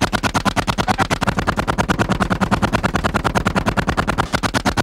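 Tank-mounted M2 .50 caliber heavy machine gun firing a long, sustained automatic burst at a steady rate of about eight or nine shots a second.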